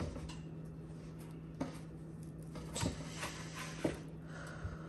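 Plastic spatula scraping and knocking lightly against a nonstick griddle pan as it is worked under a pancake, a few soft knocks over a steady low hum.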